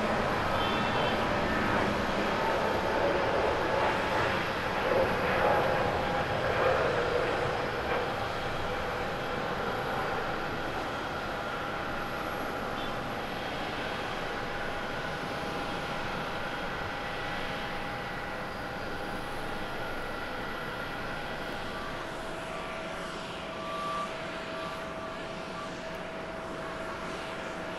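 Twin-engine jet airliner at takeoff thrust through its roll and climb-out: a loud rushing jet noise with a steady engine whine. It is loudest about five to seven seconds in, then slowly fades as the aircraft climbs away.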